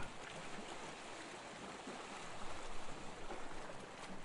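Sea sound ambience: a soft, steady wash of water with gentle swells, like waves rolling in.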